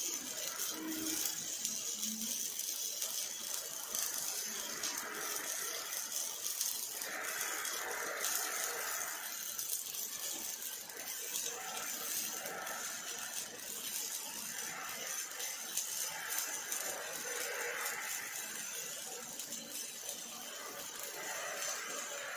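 OTC robot's MIG welding arc crackling and hissing steadily as the torch runs a weld bead along a steel frame.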